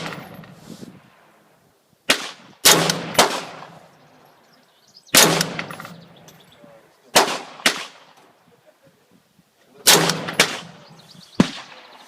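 AR-15 rifle in 5.56/.223 firing single semi-automatic shots, about eight of them, irregularly spaced with some in quick pairs about half a second apart, each sharp crack trailing into a short ringing echo.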